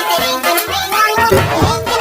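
Electronically distorted music from a children's song, with a steady beat that grows heavier about a second in.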